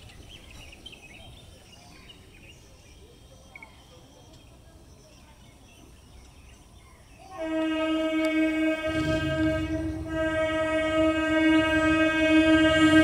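Electric multiple unit local train sounding its horn: one long, steady, pitched blast starting suddenly about seven seconds in, with a brief dip partway. From about nine seconds it is joined by the low rumble of the train running closer. Before the horn there is only faint background.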